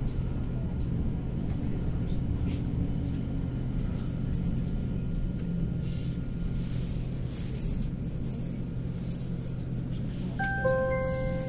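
Saarbahn tram running, heard from inside the car: a steady low rumble and hum, with a faint high whine through the first half. Near the end a chime of several staggered notes sounds, the signal that comes before the next-stop announcement.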